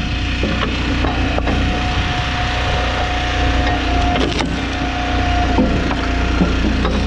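Chainsaw running steadily under load while cutting through wood, with scattered cracks and ticks from the wood and chips.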